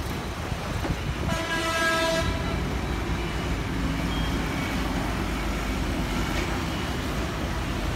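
A vehicle horn sounds once for about a second, over a steady low rumble.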